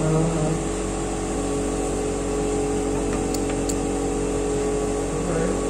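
Air compressor for a paint spray gun running with a steady hum.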